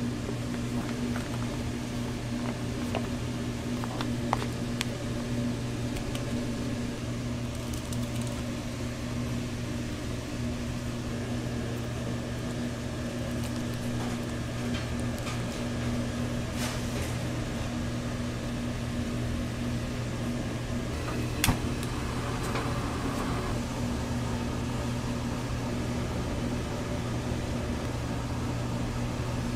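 Steady low hum of running kitchen machinery, with a few light clicks and one sharp knock about two-thirds of the way through.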